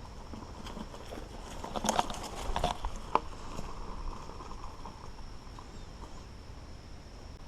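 Mountain bike rolling on a dirt trail with a steady low rumble, and a cluster of rattling clicks and knocks from the bike from about two to three seconds in.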